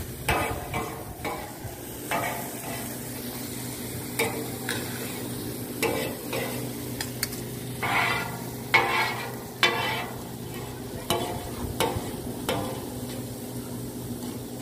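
A metal skimmer and spatula scraping and clanking across a flat metal griddle, tossing chopped onions and green peppers, over a steady sizzle of frying. The strokes come irregularly, about one every half-second to second, loudest around the middle, with a faint steady low hum underneath.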